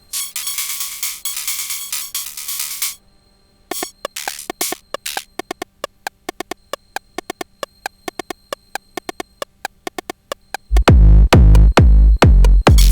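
Sonic Potions LXR-02 digital drum machine playing a techno pattern. About three seconds of dense, hissy hits give way after a short gap to a fast run of clicky percussion. Near the end a loud, deep kick drum comes in on a steady beat.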